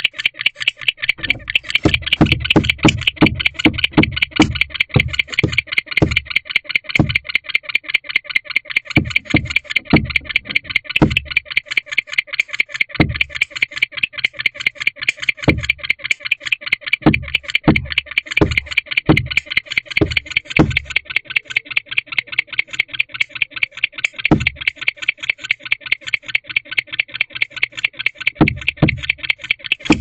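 Fast, even pulsing chirps of night insects, with runs of dull low thumps and scuffs from a barn owl shifting its feet on the wood-shaving floor of the nest box.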